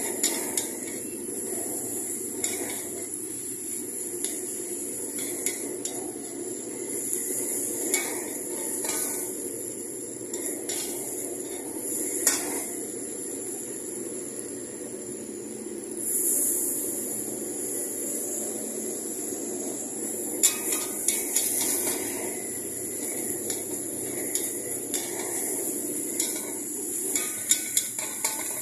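Metal spatula scraping and clanking irregularly against a steel wok as flat rice noodles are stir-fried, over a steady rushing noise.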